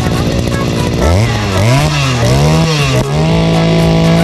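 RELOAD 541 brush cutter's two-stroke engine idling, then revved with a few throttle blips from about a second in, and held steady at high revs near the end.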